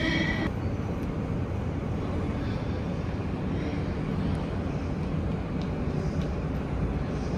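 City street background noise: a steady low rumble of distant traffic. A brief pitched sound fades out about half a second in.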